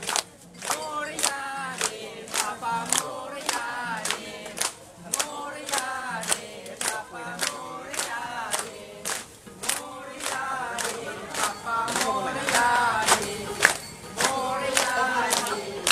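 A crowd clapping in time, about two claps a second, along to a devotional mantra song for Ganesha sung by a group of voices.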